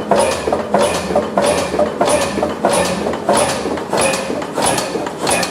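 Old stationary engine running slowly and steadily. Each stroke is a sharp, clattering beat, about one and a half beats a second.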